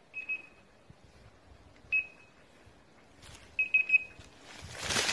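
High, steady electronic beeps in short groups: two, then one, then four quickly in a row. This fits a pointing dog's beeper collar. Near the end, a rustling of movement through tall grass builds up.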